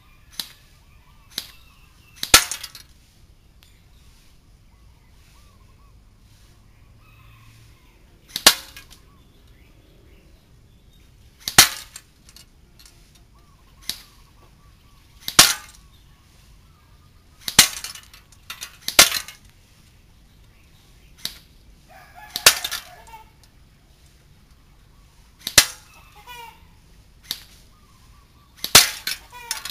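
JingGong MAC-10 electric airsoft gun firing at a target, in sharp single shots and short bursts spaced irregularly, about a dozen in all.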